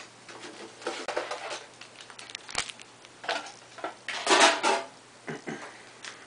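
Foil Yu-Gi-Oh booster pack wrapper crinkling and rustling as it is torn open and the cards are pulled out, in a string of short bursts with the loudest crinkle about four and a half seconds in.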